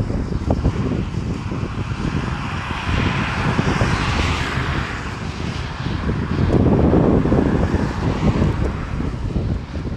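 Wind buffeting the phone microphone over passing road traffic. A hiss swells and fades about four seconds in, and a louder gust comes about seven seconds in.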